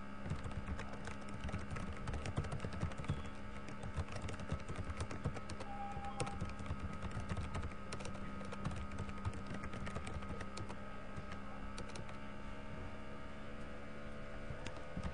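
Typing on a computer keyboard: a run of quick, irregular key clicks over a steady background hum.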